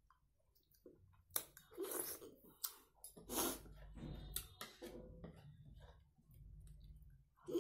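Close-up eating sounds: a spoon scraping and clicking against a small ceramic bowl of yogurt, with soft mouth and chewing sounds. There are sharp clicks about one and a half, two and a half, and four and a half seconds in.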